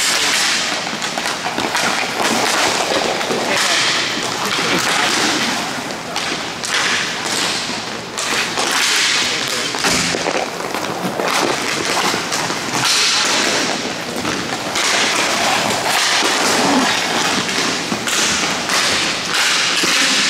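Hockey play: skates scraping and swishing, with stick and puck clacks and dull thuds one after another throughout.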